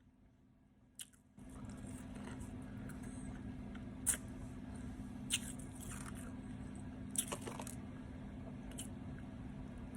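Ice being bitten and chewed: several sharp crunches a second or so apart, over a steady low hum that starts about a second in.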